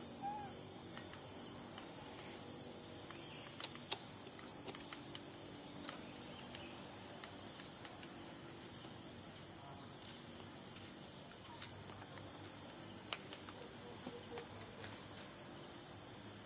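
Insect chorus shrilling steadily in one unbroken high-pitched tone, with a few faint clicks and a brief small chirp just after the start.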